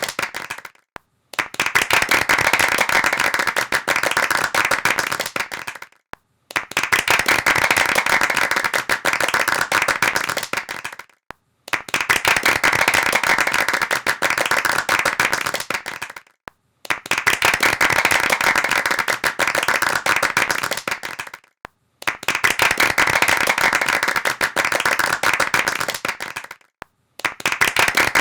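Hands clapping in a dense, continuous patter, repeated as takes of about five seconds each that stop dead for a brief silence before the next begins.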